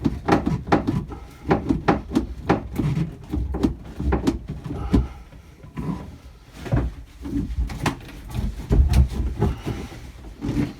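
Irregular knocks, clunks and rattles of plastic pipework being tugged and wrenched by hand against the boat's wooden fittings, with a few heavier thumps.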